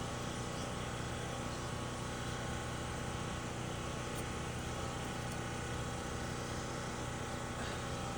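Steady machine hum, unchanging throughout, with several steady tones.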